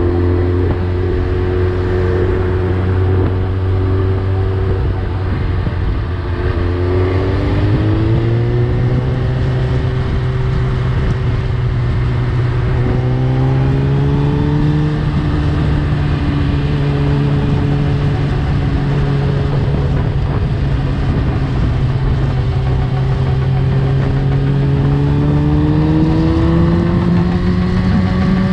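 Suzuki GSX-R1000 inline-four running through an Akrapovic full exhaust while riding. The engine note holds steady, then climbs in pitch about eight seconds in, again around fourteen seconds and once more near the end as the bike speeds up.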